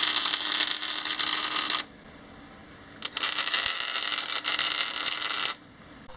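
Electric arc welding crackling in two bursts of about two seconds each, with a short gap between them: tack welds fixing a front bumper beam to the truck's frame.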